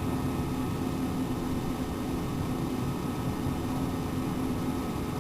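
Steady room noise: an even hiss with a constant low hum and no distinct events.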